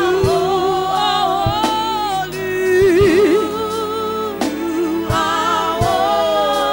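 Gospel song sung by a small group of women into microphones, several voices in harmony over a steady beat. About three seconds in, one voice holds a wavering note.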